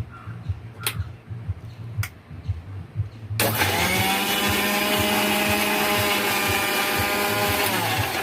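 Electric mixer grinder (mixie) blending pineapple pieces with water and sugar in a small jar. After a few light clicks, the motor starts abruptly about three seconds in, runs with a steady whine, and winds down near the end.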